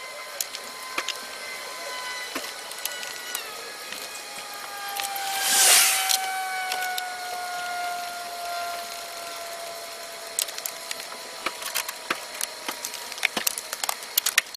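A short hiss of an aerosol spray can about halfway through. Then a run of clicks and clatter from plastic engine-bay parts being handled and the engine cover pressed back into place. A faint steady whine slowly drops in pitch behind it.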